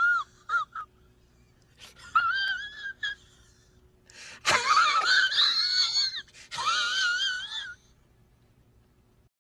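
High-pitched, wavering wheeze-like squeals in short bursts, three main ones about two seconds apart. The pitch warbles quickly up and down, like a squeaky wheezing laugh from a comedy sound effect.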